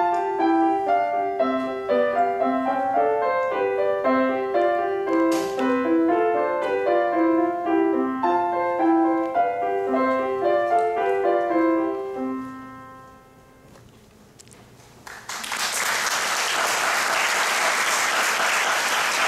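Solo grand piano playing a piece of quick, even notes, closing on a low note that fades out about twelve seconds in. After a brief hush, an audience bursts into steady applause.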